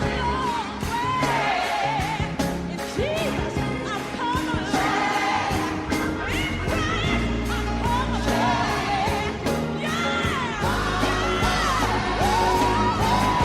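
Gospel worship music: singing over a band with a steady drum beat and bass.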